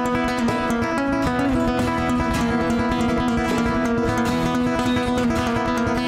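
Live acoustic instrumental: a nylon-string classical guitar and a steel-string acoustic guitar playing together, strummed and plucked, over congas. Steady, with no singing.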